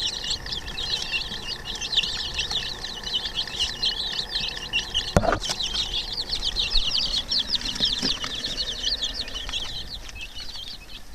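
A brood of young chicks peeping continuously, a dense chorus of short high chirps, with one sharp knock about five seconds in.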